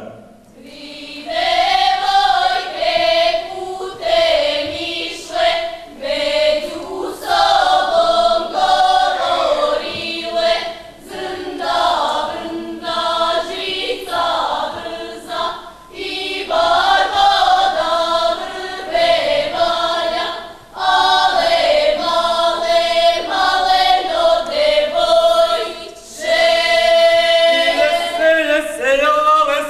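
A women's folk group singing a traditional Serbian song unaccompanied, in phrases of a few seconds separated by brief pauses.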